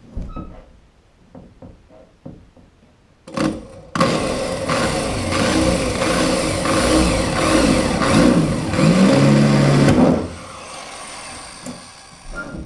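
Corded electric power tool cutting into a wooden boat bulkhead: a short start about three seconds in, then about six seconds of loud running with the motor's pitch shifting under load before it stops. A few faint knocks come before it.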